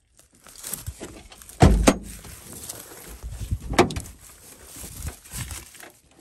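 The driver's door of an old, long-parked Datsun being worked open: a heavy clunk about one and a half seconds in and a sharp knock near four seconds, with scraping and rustling in between.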